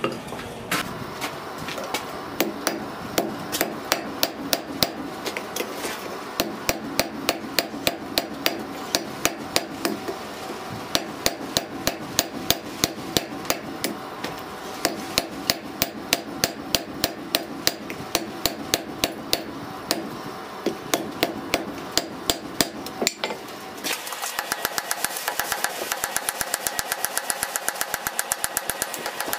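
Hand hammer blows on red-hot steel on an anvil, in runs of about three strikes a second with short pauses, forging a split cross. For the last five seconds or so the sound changes to a faster, even run of metallic strikes over a steady ringing tone.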